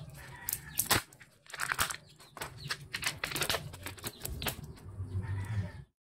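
Kinder Joy egg's plastic wrapper crinkling and tearing as it is opened by hand, a dense run of sharp crackles.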